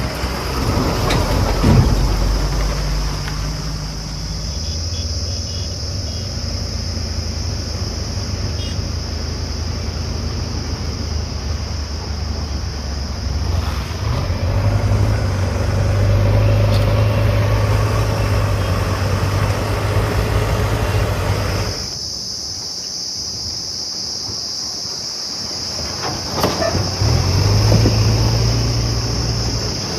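Diesel engine of a JCB 3DX backhoe loader working under load. Its note strengthens about halfway through, falls back for a few seconds a little past twenty seconds in, then picks up again near the end.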